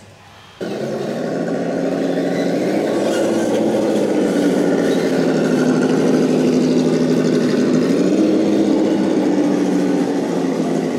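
RC scale crawler truck making a steady engine-like drone as it creeps along, starting suddenly about half a second in and rising slightly in pitch near the end before settling.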